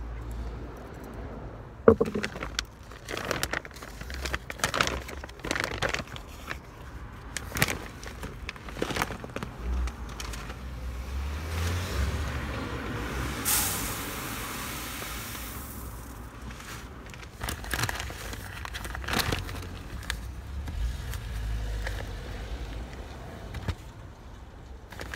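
Plastic bags and a paper seed sack being handled and rustled, with many sharp crackles and knocks and a longer continuous rustle a little past the middle. A low rumble runs underneath.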